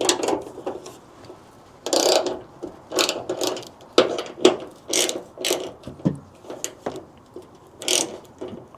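Metal mounting hardware clicking and scraping in short, irregular bursts as quick-release Picatinny mounts are pushed along their rails and fitted.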